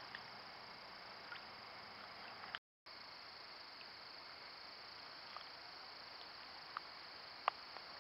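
Beaver working on a mud-and-stick dam: a few faint, sharp clicks and ticks, the loudest about seven and a half seconds in, over a steady high chorus of crickets. The sound drops out completely for a moment near three seconds in.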